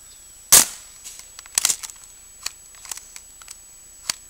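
A pump BB gun converted to run off an air compressor at 90 PSI fires one sharp shot about half a second in. Several lighter clicks and clacks follow.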